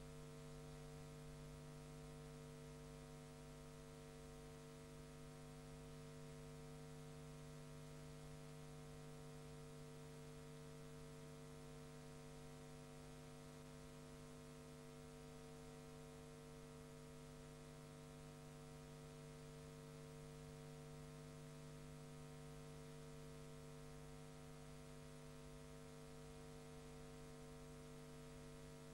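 Near silence: a faint, steady electrical hum with hiss, unchanging, and no sound from the match itself.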